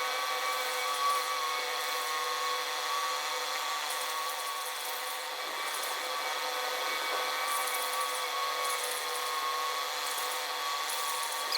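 A power tool running steadily, its motor giving a constant whine over a rough rasping noise.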